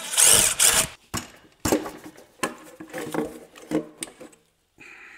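Mechanical clatter: a run of short clicks and knocks repeating less than a second apart, after a louder rattle in the first second.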